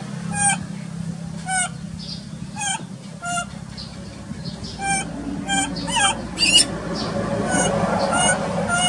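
Baby macaque crying: a string of about eleven short, shrill screams, roughly one a second, each breaking into rapid pulses. These are the distress calls of an infant crying for its mother.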